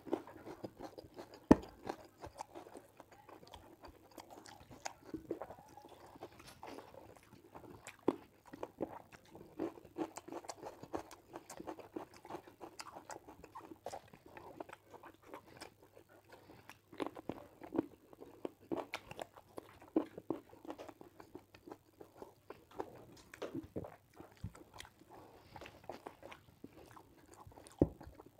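Close-up mouth sounds of a person eating rice and chicken curry by hand: chewing, lip smacks and small wet clicks, with fingers gathering rice off the plate. One sharp click about a second and a half in stands out above the rest.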